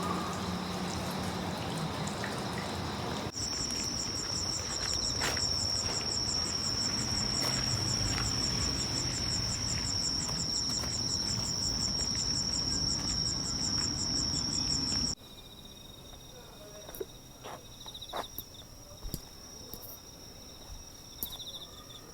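Insects singing outdoors: steady, high-pitched chirring throughout, joined in the middle stretch by a faster, evenly pulsing trill. The trill stops abruptly about fifteen seconds in, and the background noise drops at the same moment.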